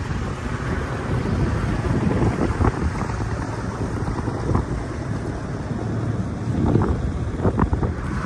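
Gusty wind buffeting the microphone, over the low engine noise of a small cabin cruiser motoring past on the river.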